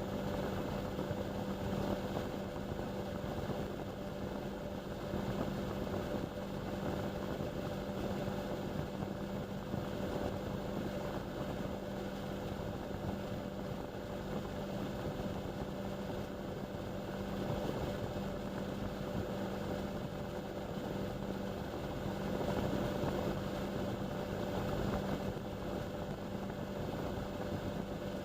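Indesit washing machine running, heard through a camera fixed to its door glass: a steady, unbroken whir with a constant low hum and no pauses.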